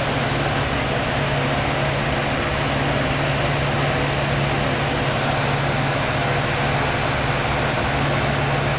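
Steady hiss of background noise with a constant low hum under it, unchanging throughout, and faint high ticks about once a second.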